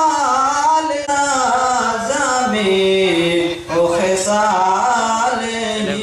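A man singing a devotional salam, a salutation to the Prophet, without instruments, in long drawn-out notes that slowly bend.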